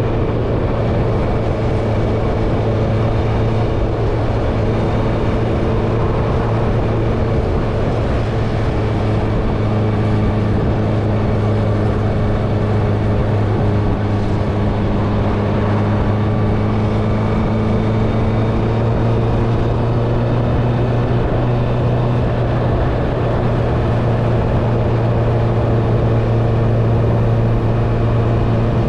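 Honda CBR650R's inline-four engine through an Akrapovic exhaust, running at a steady cruising speed with only slight drifts in pitch, over a constant rush of wind and road noise.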